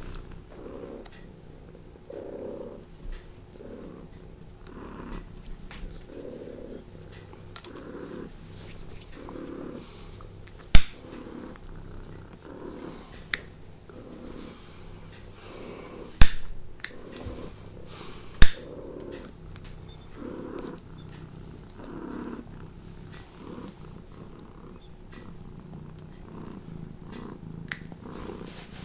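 Domestic cat purring close to the microphone, a low purr pulsing about once a second. Three sharp clicks stand out about halfway through.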